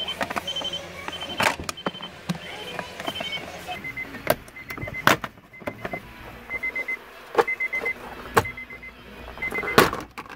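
Plastic steering-column trim knocking and clacking as it is worked loose by hand, a handful of sharp knocks. Under it a run of short electronic beeps, about one and a half a second, which drop to a lower pitch about four seconds in.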